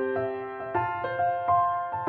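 Background music: a melody of sustained keyboard-like notes, changing every half second or so, over a soft low pulse.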